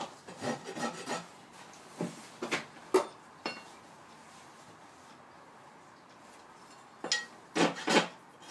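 Farrier's hoof rasp filing a horse's hoof: a run of short scraping strokes, a pause of about three seconds, then three more strokes near the end.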